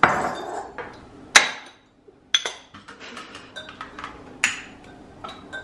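A few separate sharp clinks and taps of ceramic tea mugs and a metal spoon on a tabletop, the loudest about a second and a half in, and a click from a long utility lighter near the end.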